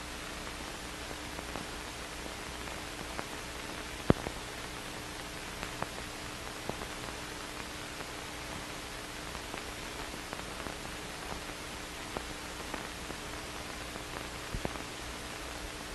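Steady hiss of an old film soundtrack with a faint steady hum and scattered clicks and pops, the loudest about four seconds in.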